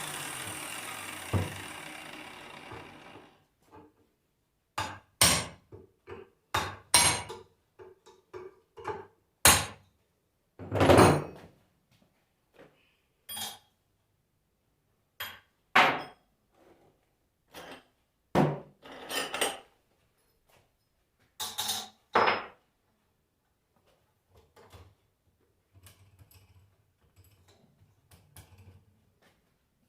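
Scattered knocks, taps and clinks of metal tools on the parts of a Bosch alternator during its dismantling for a bearing replacement. A steady whirring noise fades out over the first three seconds or so.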